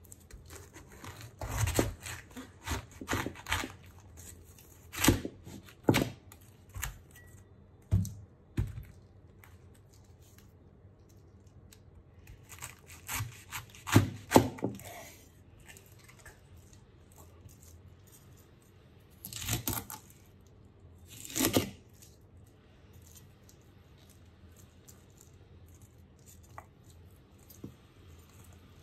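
Large kitchen knife cutting through a raw red cabbage on a wooden cutting board: crisp crunching and crackling of the tightly packed leaves as the blade goes through, with sharp knocks as it meets the board. The cuts come in bursts with pauses between, and the last third is mostly quiet.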